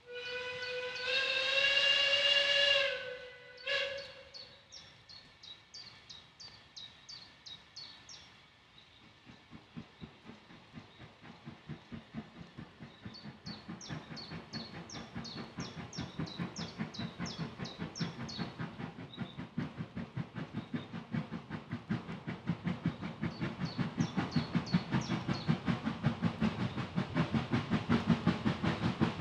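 Steam tank locomotive, Robert Stephenson & Co. No. 3 Twizell, sounding its whistle: one long blast, then a short one. It then works a train with regular exhaust beats, about four a second, that grow louder as it approaches.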